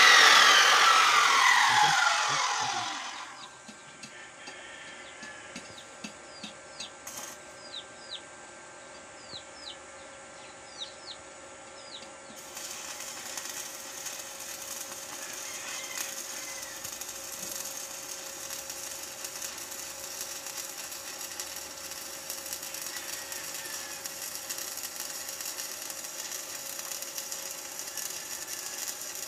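Abrasive cut-off saw motor winding down, its pitch falling over about three seconds. About twelve seconds in, an arc welding arc from an Ingco inverter welder starts and keeps up a steady crackling hiss.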